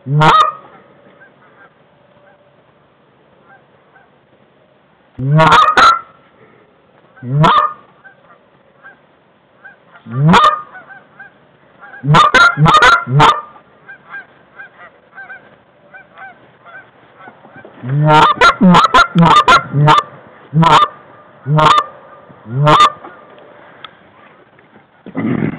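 Goose honks and clucks in about nine loud bursts, some of them quick strings of short notes, over fainter, constant honking of more geese in the background.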